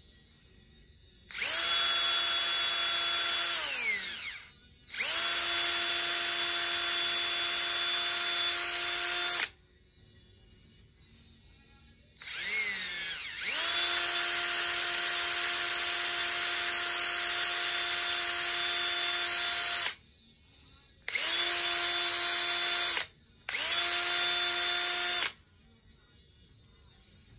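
A small high-speed electric drill switched on and off in about six runs of one to six seconds each, a steady high whine while running and a falling pitch as it winds down. It is working tulsi wood for bead making.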